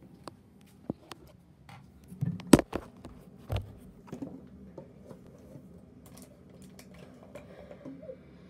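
Handling noise of a phone and small objects: scattered clicks and taps, with a cluster of sharp knocks about two and a half seconds in and another knock a second later as the phone is set down on a surface.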